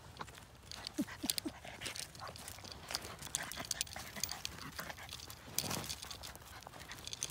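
Two small dogs play-wrestling on wood chips: paws scuffling and crunching through the chips in short scattered rustles, with three short falling vocal sounds from a dog about a second in and a brief low rumble near the end.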